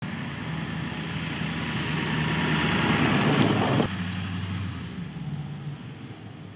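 An engine running steadily, a low hum under a rushing noise. It swells, cuts off abruptly just under four seconds in, and carries on more quietly.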